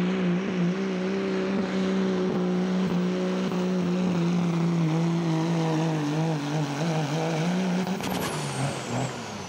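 Dodge Ram's 5.9 L Cummins diesel engine running hard and steady under full load while the pickup drags a pulling sled. Near the end the engine note drops and a high whistle falls away in pitch.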